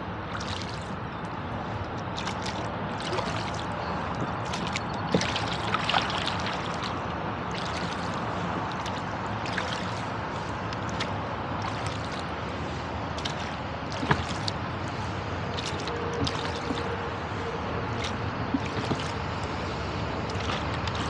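Oars of a small rowboat dipping and pulling through river water, with splashing and water trickling off the blades and short knocks about once a second, over a steady hum of highway traffic.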